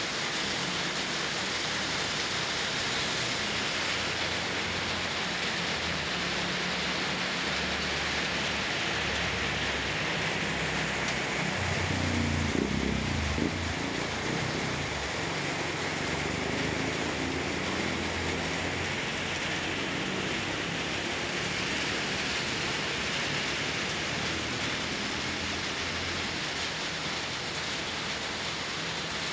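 Heavy rain pouring steadily onto a flooded street, with a low rumble of vehicle engines under it. About twelve seconds in, a motorbike passes, swishing through the water, and is briefly the loudest sound.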